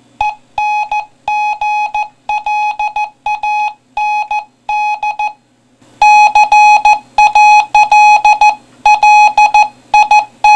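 A single-pitched electronic beeping tone keyed in short and long pulses grouped like Morse code, getting louder about six seconds in.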